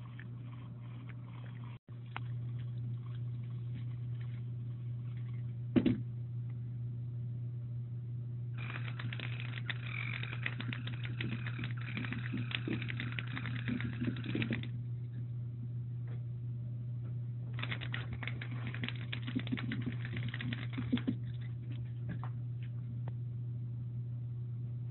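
Battery-powered ghost-shaped cat toy running on a hardwood floor: two spells of rapid clicking rattle, each a few seconds long, over a steady low hum, with a single knock about six seconds in.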